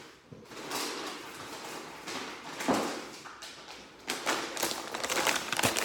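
Plastic bags and packaging rustling and crinkling as items are rummaged out of a suitcase, with a knock a little before the halfway point; the crinkling gets busier in the second half.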